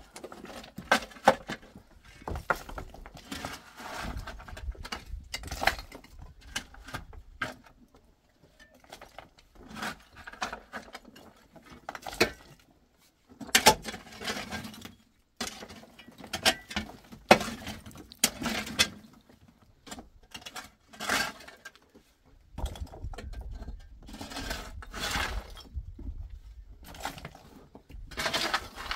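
Irregular clatter of knocks, taps and rattles as objects are handled and struck, a few of them sharp, with a low rumble at times.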